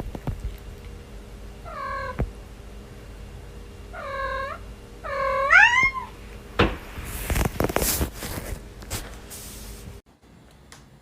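A cat giving three short, squeaky meows while yawning: one about two seconds in, then two close together around four and five seconds in, the last sliding up and then down in pitch. A few seconds of rustling noise follow.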